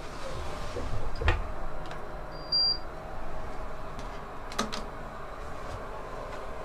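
Elevator key-card reader giving one short high beep as a card is held to it, with a few sharp clicks before and after over a steady low elevator hum.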